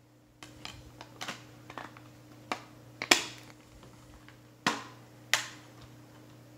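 Plastic Blu-ray keep case being handled: a run of light clicks and rattles as the disc is pressed back onto its hub, then sharper plastic snaps as the case is shut, the loudest about three seconds in and two more near the five-second mark.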